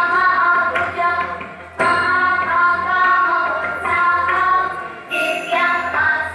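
Indian devotional song: a singing voice holding long notes over instruments, in phrases that break off briefly about two seconds in and again near five seconds.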